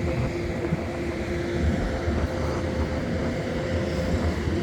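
Steady low rumble of engines or machinery with a faint steady hum. The hum fades about a second and a half in.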